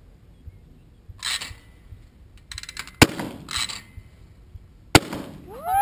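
Two shots from an over-under shotgun, about two seconds apart, each a sharp report with a short low tail.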